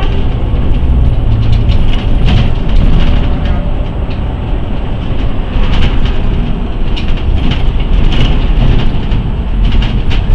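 City bus driving along a street, heard from inside near the front: a steady engine and road rumble with frequent rattles and knocks from the body.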